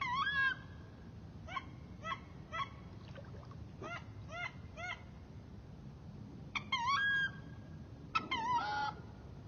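Duck calls: short, clear squeals that rise and fall in pitch, of the wood duck kind. A wavering call comes first, then two sets of three quick squeals, then longer wavering calls near the end.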